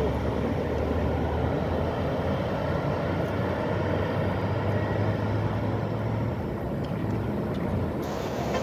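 Road traffic on a multi-lane boulevard: a bus and cars driving away, a steady rumble of engines and tyres with a low engine drone that eases about six and a half seconds in.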